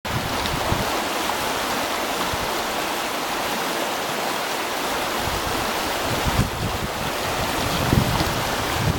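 Water rushing and churning down the stepped channel of a fish ladder, a steady white-water rush. From about six and a half seconds in, wind buffets the microphone with low rumbling gusts, the strongest near the end.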